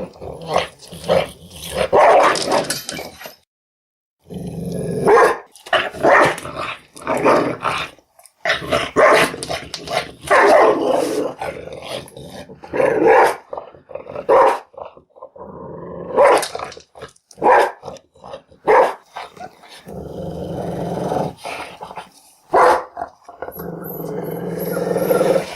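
An angry dog barking and growling aggressively: volleys of sharp barks mixed with drawn-out growls, including a long growl near the end, with a brief silent break about three and a half seconds in.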